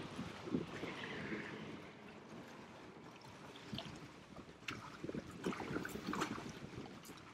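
Small waves lapping and splashing against the hull of a kayak, with scattered light irregular knocks, busier in the second half.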